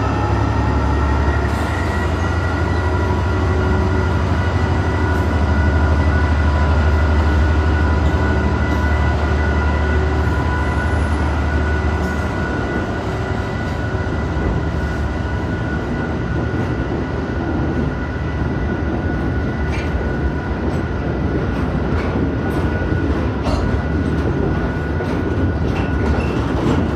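Diesel train passing slowly: a heavy low engine rumble with a steady high-pitched whine over it, and regular wheel clicks over rail joints in the last third.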